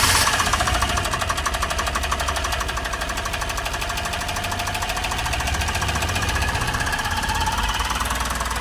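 Suzuki Super Carry engine idling steadily, with an even, fast ticking pulse.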